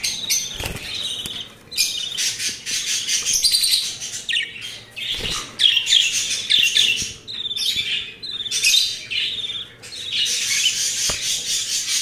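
Caged budgerigars chattering and chirping, many high calls and warbles overlapping in a dense, unbroken chorus.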